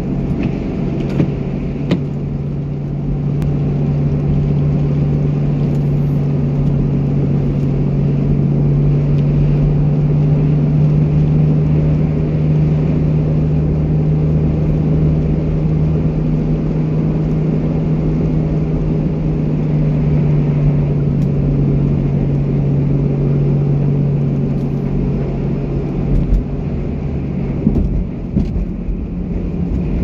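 Steady drone of a car driving on a wet, slushy snow-covered road, heard from inside the cabin, with a steady low hum that fades out near the end.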